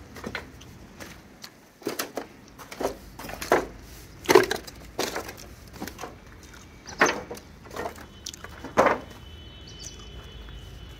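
Dry wood and twigs crackling and snapping in a string of irregular crunches, the loudest about four seconds in, with more near seven and nine seconds.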